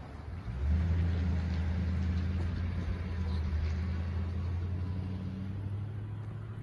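Low, steady hum of a motor vehicle's engine that comes in about a second in and holds, easing off slightly near the end.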